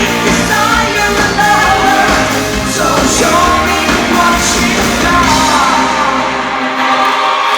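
Live rock band playing with a singer over it, loud in the hall. The bass and drums drop out near the end.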